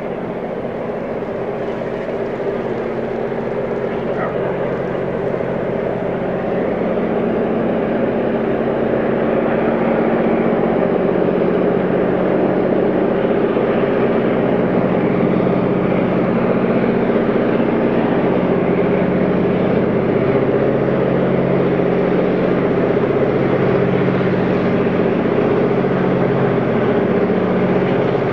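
Diesel-electric freight locomotive engine running under power as the train approaches, with a steady drone that grows louder over the first ten seconds, then holds level.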